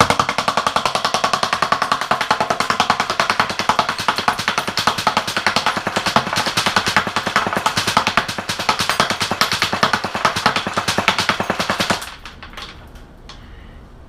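Lancer Tactical M4 airsoft rifle firing one long full-auto burst of about twelve seconds, a rapid, even rattle of shots that stops abruptly. A few faint ticks follow.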